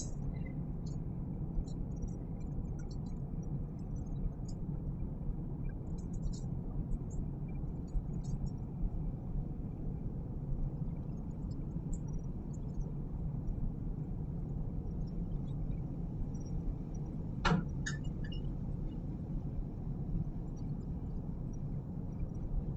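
Steady low hum of background room noise, with faint clicks and scrapes of a spoon against a pot and skillet as cooked rice is scooped into the pan. One sharper knock comes about 17 seconds in.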